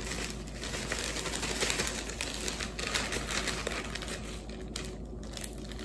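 Zip-top plastic bag of crushed Oreo cookies crinkling and rustling as it is handled and shaken, with many small ticks.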